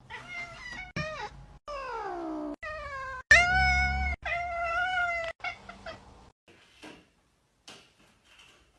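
Domestic cat meowing in a string of calls, some short and some drawn out, several falling in pitch. The loudest and longest meow comes about three seconds in. The calls break off abruptly, and only faint sounds follow after about six seconds.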